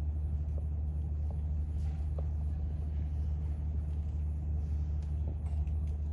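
A steady low hum, unchanging throughout, with a few faint ticks over it.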